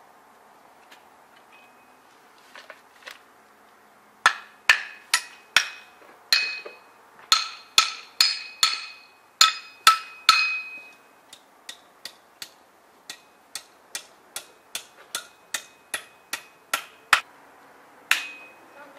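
A hammer striking metal in a run of sharp blows, about two or three a second, each with a brief ringing tone. The blows begin about four seconds in and turn lighter after about eleven seconds.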